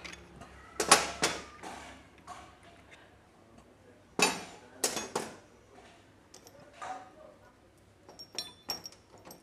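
Metal tools and engine parts clinking and knocking as they are handled, in a series of sharp, separate clinks with short metallic ringing. The loudest come about a second in and again around four to five seconds in.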